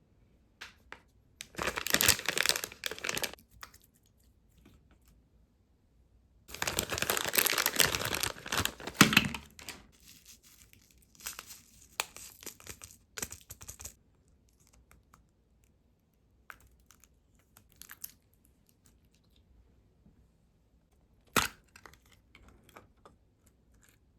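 Plastic packaging of 100-yen-shop slime being torn open and crinkled, in two long rustling bursts, then quieter handling and a single sharp click near the end.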